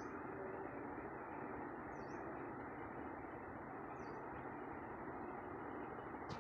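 Steady background hiss, with a faint high chirp about every two seconds.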